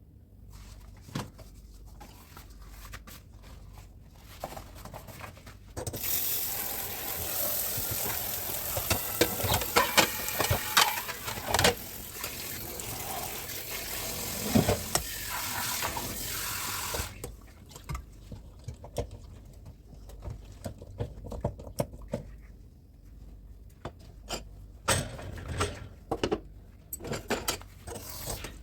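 Dishes being washed in a kitchen sink: the tap runs for about ten seconds in the middle, water splashing into the sink, with dishes and utensils clinking and knocking against each other before, during and after it.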